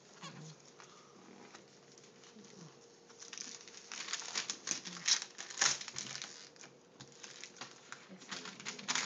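Wrapping paper being torn and crumpled as a gift is unwrapped: a quick run of crackles starting about three seconds in and lasting a few seconds, with more near the end.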